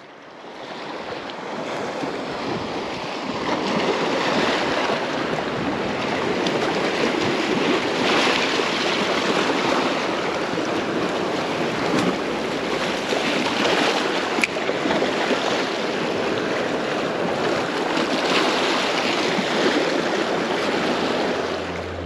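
Small sea waves washing and breaking over shoreline rocks: a steady rush that fades in at the start and swells every few seconds, with a couple of short clicks near the middle.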